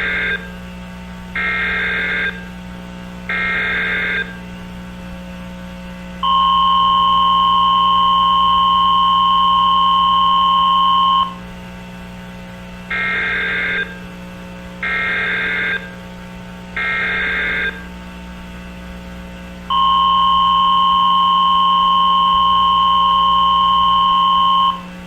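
Emergency Alert System signalling: three short, buzzy data bursts of the digital alert header, about two seconds apart, then a steady two-tone attention signal lasting about five seconds. The same three bursts and long tone then repeat. A low steady hum runs underneath.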